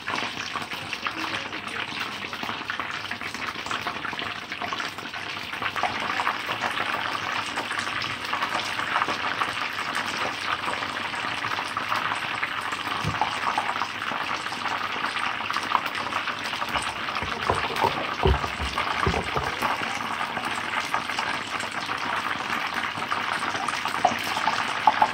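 Battered fish pieces deep-frying in a pan of hot oil: a steady crackling sizzle, with a few dull knocks about two-thirds of the way through.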